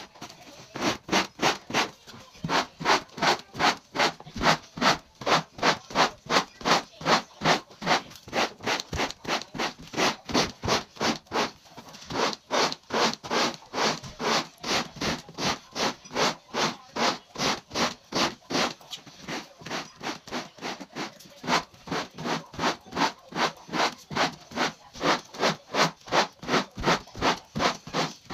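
Rubber broom scrubbing a carpet in rapid, even back-and-forth strokes, about two or three a second, sped up, as it drags dog hair out of the pile.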